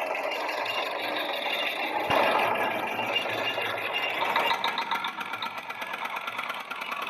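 Small electric motor and gears of a toy construction vehicle whirring continuously, with a fine rapid ticking in the second half.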